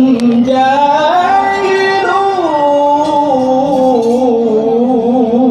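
A male qari reciting the Quran melodically: one long, ornamented vocal line that glides up and down in pitch with a light vibrato.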